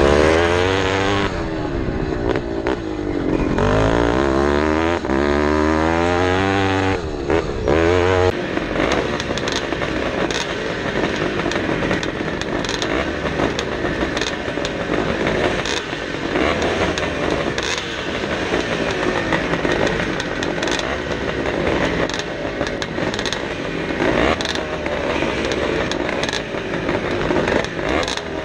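Vintage motocross bike's engine revving up and down as the rider works through the throttle and gears on the track, for about the first eight seconds. Then it cuts to a steadier mix of several motocross bikes running at the starting gate, with scattered clicks.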